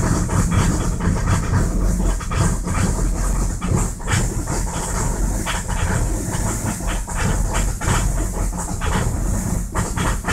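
Audi A6 Quattro's 2.5-litre V6 TDI diesel (AEL) idling at about 1000 rpm shortly after a cold start, with a steady rhythmic diesel clatter.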